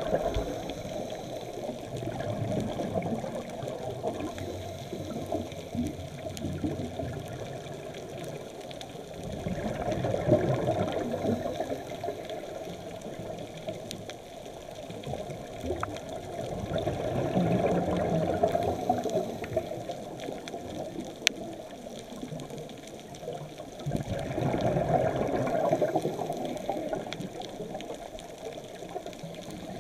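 Underwater sound of a diver breathing: a muffled rushing of exhaled bubbles that swells about every seven or eight seconds, over a steady low underwater hiss.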